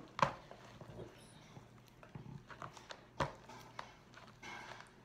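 A few sharp clicks and knocks from things being handled on a tabletop, the loudest just after the start and another about three seconds in, with a short soft rustle near the end.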